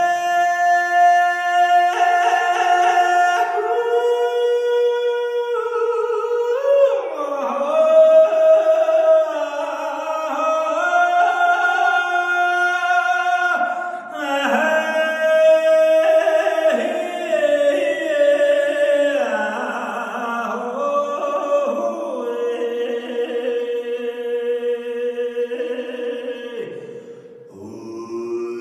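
Unaccompanied solo male voice singing Mongolian long song: long held notes with ornamented turns and glides between them. Near the end the voice drops lower and quieter.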